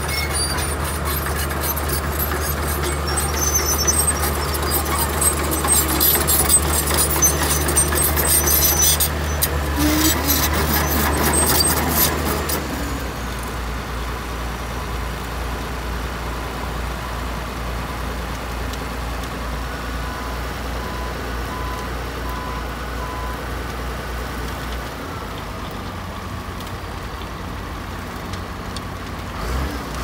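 Heavy diesel construction machinery running steadily, with metallic clanking and scraping for the first dozen seconds. The engine note then changes abruptly, and a few short evenly spaced beeps sound in the middle.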